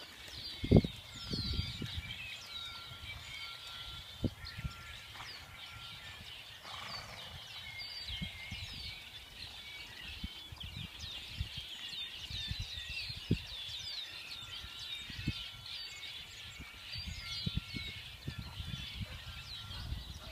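Many small birds chirping continuously, with scattered dull low thumps underneath from a horse's hooves on arena sand, the loudest about a second in.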